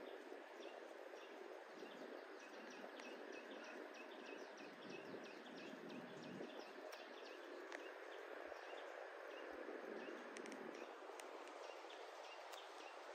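Faint outdoor ambience: a steady low hiss with a small bird's quick, repeated high chirps, about three a second, thinning out about halfway through.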